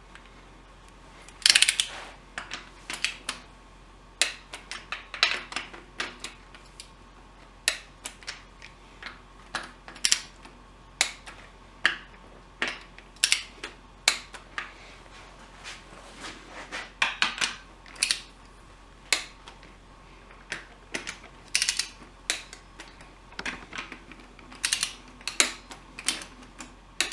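Hand ratchet and click-type torque wrench clicking in short, irregular runs as bolts are run down and torqued.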